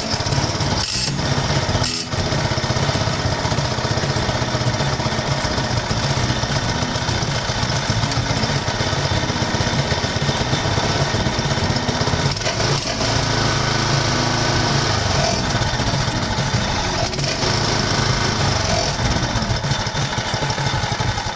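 The small Kubota tiller's Subaru OHV single-cylinder engine catches on the first pull of its new recoil starter rope right at the start, then runs steadily.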